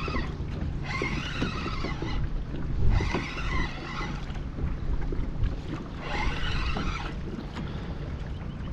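Spinning reel whirring in three spurts of about a second each as line is reeled in against a large hooked snook, over a steady low rumble of wind on the microphone, with one dull thump about three seconds in.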